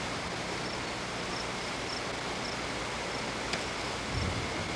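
Steady hiss of outflow wind on the camcorder microphone, with a faint high chirp repeating a little under twice a second. A small click comes past the middle, and a low gust buffets the microphone near the end.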